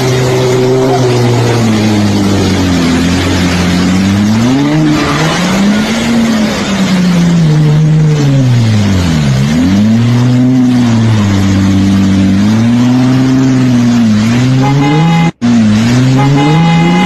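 A 4x4's engine revving up and down again and again, its pitch climbing and dropping every couple of seconds as it drives through fast-flowing floodwater, over a steady rush of water and spray. Near the end there is a brief cut, after which the engine holds a steadier note.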